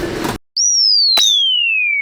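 Cartoon falling-whistle sound effect: a single pure whistle tone that jumps up high and then glides slowly downward, with a brief click about a second in. Before it, a loud noisy sound cuts off abruptly just under half a second in.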